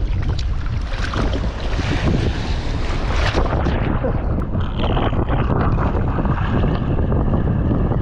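Strong wind buffeting the microphone: a heavy, constant low rumble under a gusty hiss.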